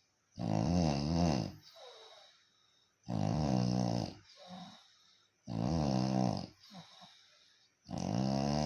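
Snoring: four long, rasping snores about two and a half seconds apart, each followed by a softer breath out.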